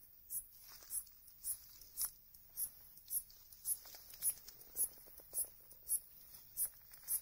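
Umaoi katydid (Hexacentrus) calling: short, high-pitched chirps repeated about twice a second, about thirteen in all. Faint rustling in the undergrowth sounds between them.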